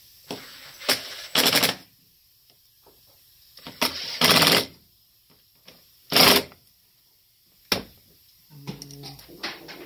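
Cordless power driver running in four short bursts, driving in the screws of a carburetor's diaphragm cover.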